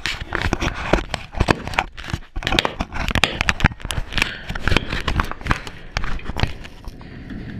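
Handling noise of an action camera being fastened to a chain-link fence: rapid rubbing, scraping and clicks against the housing. It settles to a quieter background about a second before the end.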